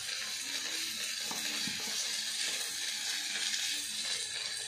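Onions and soya chunks frying in mustard oil in a pan, a steady sizzling hiss.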